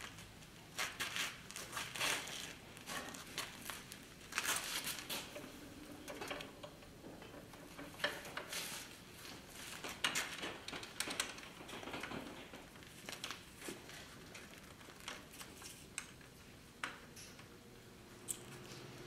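Handling noises as a banksia pod is fitted and tightened into the chuck of a small wood lathe: irregular clicks, knocks and rustling scrapes of the fibrous pod against the metal chuck. A low steady hum begins near the end.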